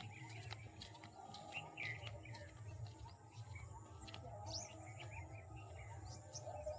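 Birds chirping: short, high chirps and calls scattered throughout, fairly faint, over a steady low hum.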